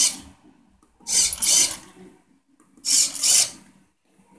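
Cereal dispenser turning and dispensing Cheerios that rattle into a ceramic bowl, in three short bursts about a second and a half apart.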